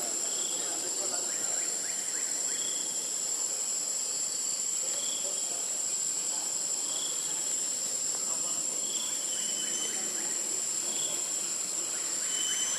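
Insects droning with a continuous high-pitched whine, and a short softer note repeating about every two seconds.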